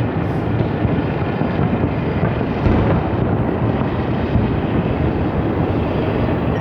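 Fireworks show going off as a dense, steady rumble, the booms running together without a clear single blast, with wind on the microphone.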